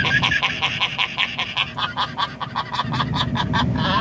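A man laughing hard in a long, unbroken run of rapid laugh pulses, several a second, with the low rumble of the car's road noise underneath.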